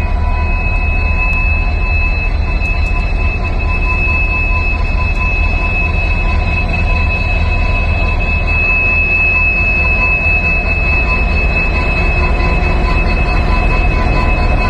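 EMD-built WDP4 diesel-electric locomotive's 16-cylinder two-stroke engine running as the locomotive rolls slowly past close by: a steady low rumble with a constant high-pitched whine over it.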